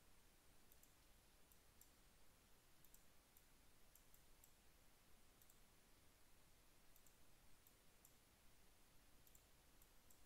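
Faint, irregular computer mouse clicks over near-silent room tone.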